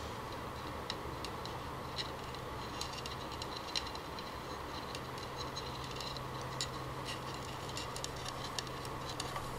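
Faint, scattered light clicks and taps as chopsticks and a ceramic bowl are handled while a live coconut grub is dropped into rice wine, over a steady low hum.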